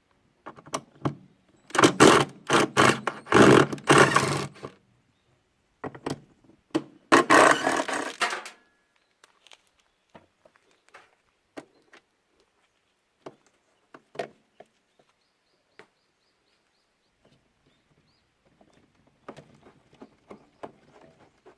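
Knocking, banging and scraping of tools on metal washing-machine parts as the unit is dismantled, in two loud rapid flurries followed by scattered light clicks and taps.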